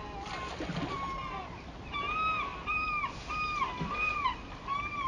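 A bird calling over and over in short notes that rise and fall in pitch, with a quick run of about five calls from about two seconds in, over steady rushing river water.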